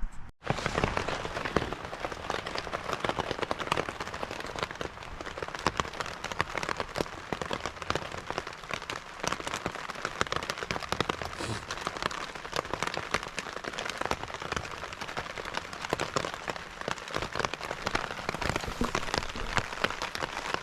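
Heavy rain falling on the fabric of a camping shelter, a dense, steady patter of countless drops. It starts abruptly after a brief moment of silence.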